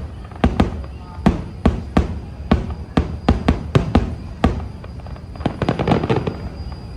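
Fireworks going off in quick, irregular bangs, about two or three a second, with a dense burst of crackling about six seconds in.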